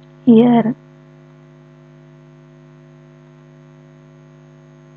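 Steady electrical hum in the recording: a constant low buzz made of several fixed tones. One short spoken word cuts in about half a second in.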